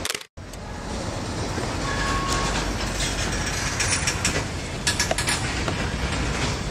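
Freight train of tank cars rolling past close by: a steady rumble of wheels on rail with scattered sharp clacks as the wheels cross rail joints. The sound drops out briefly at the very start.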